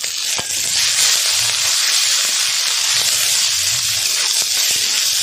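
Fresh-ground ginger, garlic, cumin and coriander paste sizzling in hot oil in a kadai: a loud, steady hiss of frying.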